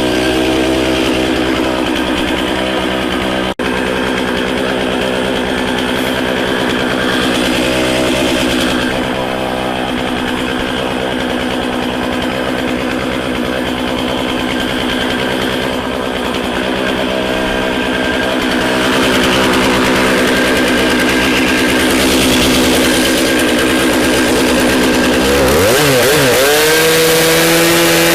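Gas chainsaw running while bucking firewood to shorter lengths. Its engine holds a steady pitch most of the time, then near the end dips and climbs to a higher, steady speed.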